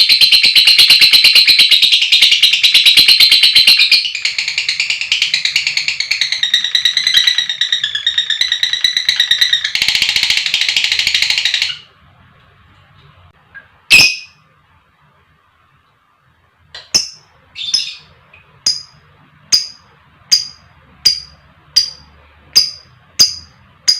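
Lovebirds: a long, rapid, high-pitched chattering trill (the 'ngekek panjang' of a bird in full song) that cuts off suddenly about twelve seconds in. Then comes one loud sharp call, and from about seventeen seconds short sharp chirps repeat evenly, a little faster than one a second.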